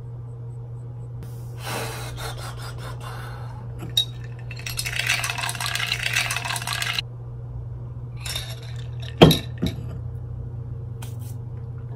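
A metal straw stirring and clinking against the glass of a mason jar, in stretches of scraping rattle, with one sharp knock a little after nine seconds in.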